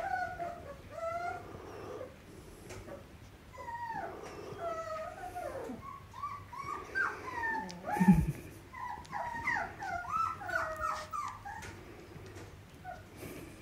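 Australian Shepherd puppy whimpering and squeaking in many short, high cries while it mouths a hand, the cries coming thickest about nine to eleven seconds in. A single thump about eight seconds in.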